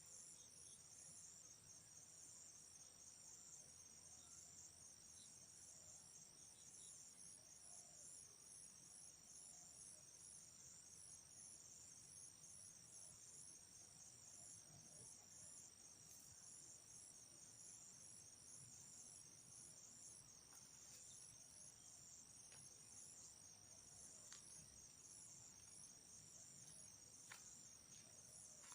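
Faint insect chorus: a steady, high-pitched trill pulsing evenly and without a break.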